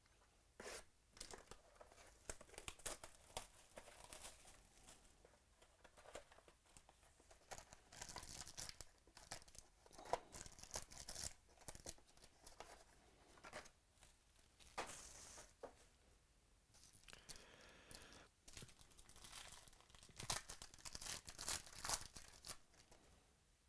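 Foil wrapper of a 2017 Panini XR football card pack crinkling and being torn open, with the cardboard box handled, in a string of short crackles and rips.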